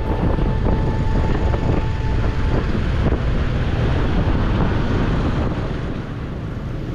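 Steady road and traffic noise from a vehicle driving through city streets, deepest in the low end, with wind buffeting the microphone.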